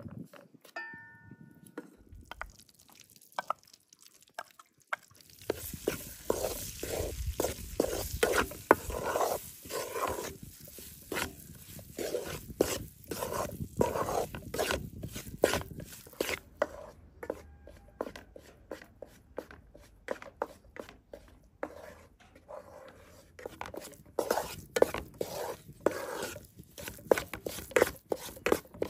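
Wooden spatula scraping and stirring halva in a metal pan, in quick repeated strokes. From about five seconds in, a sizzle rises under the stirring as hot syrup is worked into the roasted wheat flour.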